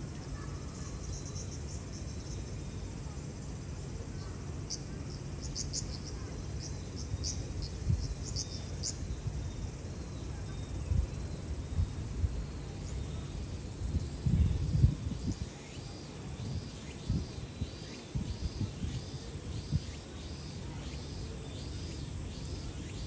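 Insects calling outdoors in repeated high chirps, irregular at first and then a steady run of pulses. Under them is a low rumble, with a cluster of louder thumps about two-thirds in.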